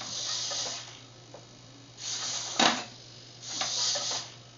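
Hobby servos in an R2-D2 dome whirring in three short bursts as they swing the dome's door panels open, with one sharp click about two and a half seconds in.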